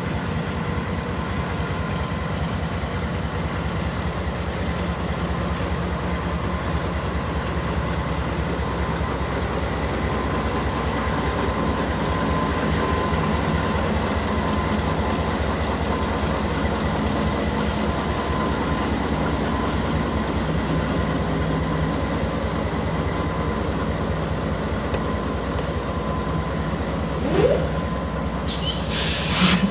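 Freight train rolling past: a steady rumble and clatter of wheels on the rails, with a faint steady ring above it. Near the end comes a short rising tone, then a brief burst of hiss.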